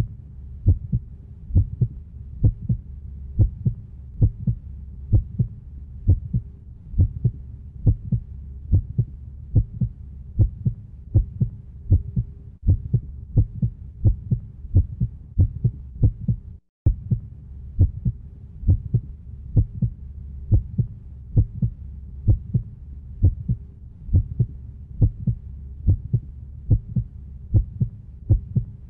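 Heartbeat sound effect: low thumps repeating in a steady, even rhythm over a low steady hum. It cuts out for a moment just past halfway, then carries on.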